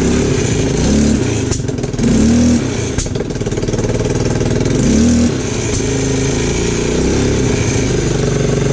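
Linhai 300cc 2x4 ATV engine running at low speed, with short rises in revs about two and five seconds in.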